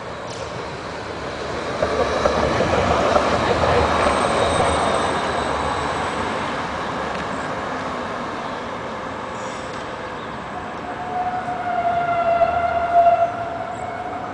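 Bombardier Flexity Outlook low-floor tram passing close by, a rolling rush of wheels on rails and running gear that swells and then fades as it moves away. Near the end a steady squealing tone rises and stops.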